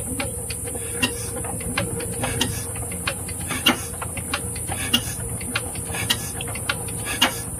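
Changfa 1115 single-cylinder diesel engine being turned over by hand, giving sharp, unevenly spaced tak-tak clicks, several a second, over a steady low hum. The clicking is what the mechanic is setting by tightening or loosening an adjustment, which he says makes it more or less.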